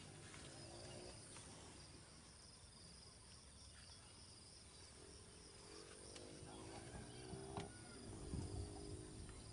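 Near silence with the faint, steady trilling of insects. A faint low drone comes in about halfway through.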